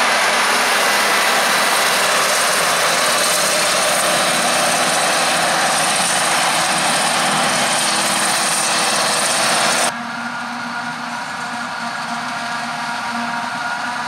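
Claas Jaguar 970 forage harvester chopping maize: a loud, steady mixture of engine and cutting machinery with several whining tones. About ten seconds in, the sound cuts to a quieter, duller, steady running of the harvester and an accompanying tractor heard from further off.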